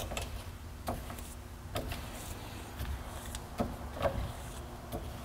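Wall-mounted coil spring compressor being wound by hand at its top screw handle, with a short mechanical click or knock about once a second as the handle is worked.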